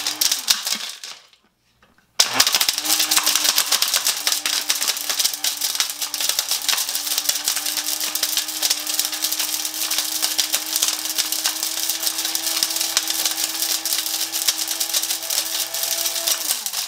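Small Hamilton Beach blender running with a few plastic bottle caps clattering and being chopped in its jar, a dense rattle over a steady motor hum. It cuts out about a second in, starts again about two seconds in, and winds down near the end.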